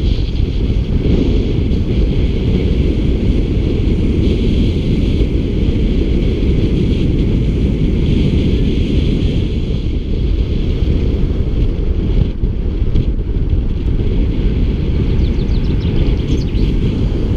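Steady wind buffeting the microphone of a camera on a bicycle riding at speed, with a fainter steady hiss above it.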